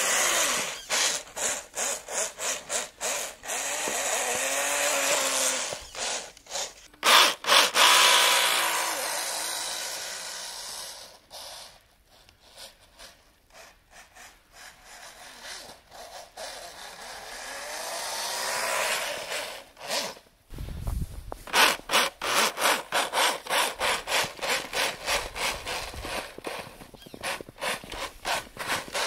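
Electric RC snowmobile's 540 motor and gear drive whining, its pitch rising and falling with the throttle; it fades in the middle and comes back loud after about 20 seconds. Through it, short crunching strokes repeat about twice a second, like footsteps in snow.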